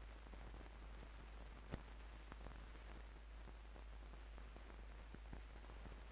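Near silence: the faint hiss and steady low hum of an old film soundtrack, with scattered faint clicks and one sharper click a little under two seconds in.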